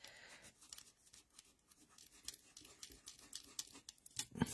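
Faint scratchy rubbing of a pencil's eraser over cardstock, in many quick, irregular short strokes, as pencil marks are rubbed out.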